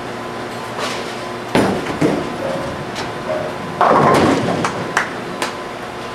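Ten-pin bowling ball delivered down the lane: a couple of sharp thuds about a second and a half in, then a loud clattering crash of pins about four seconds in, with a few sharp clacks after it. A steady hum of bowling-alley machinery runs underneath.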